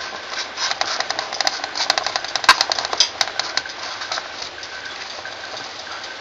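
Oiled chunks of boiled potato being turned by hand in a metal baking tray: a dense run of small clicks, knocks and soft wet shuffling. It thins out about four seconds in, leaving a steady low hiss.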